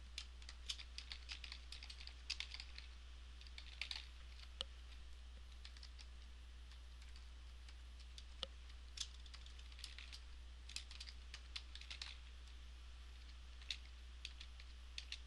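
Computer keyboard typing: faint runs of quick keystrokes broken by short pauses, over a low steady hum.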